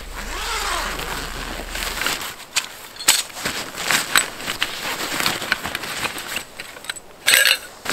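Handling a canvas gear bag on packed snow: rustling of stiff fabric and a run of small clicks and knocks as gear is taken out and set down, with a short, loud rasp about seven seconds in.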